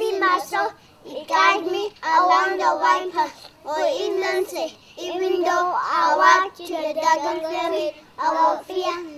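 Young children singing a song, phrase by phrase with short breaths between phrases.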